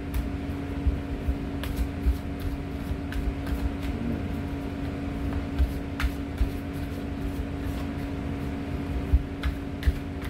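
Steady machinery hum with a held low tone and a deeper rumble underneath. Over it come a few soft clicks of a tarot deck being shuffled by hand.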